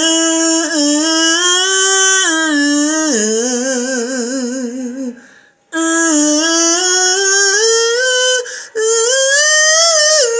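A man singing loud, long held notes with vibrato, with no words picked out, in two drawn-out phrases with a short break about halfway through.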